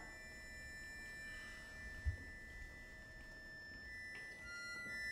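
Accordion playing soft, long held high notes, with new notes entering about four seconds in. A short, soft low thump comes about two seconds in.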